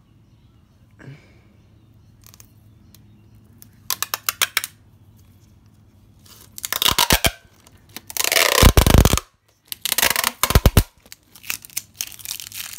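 Clear packing tape peeled off its roll in several pulls: a quick crackling run about four seconds in, then a string of loud ripping pulls, the loudest about eight to nine seconds in. The stuck outer layer is being stripped away to get a clean fresh end.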